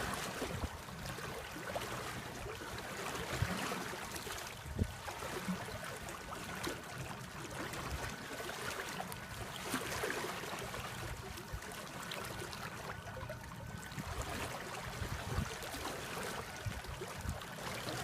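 Water rushing and splashing along a small boat's hull as it moves, with no engine to be heard and scattered short low thumps.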